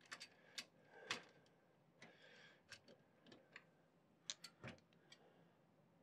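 Faint, irregular light clicks and taps, about a dozen of them, as a liquid cooler's radiator and fans are handled and set in place against a PC case's mounting bracket. The clearest come about a second in and again a little past the middle.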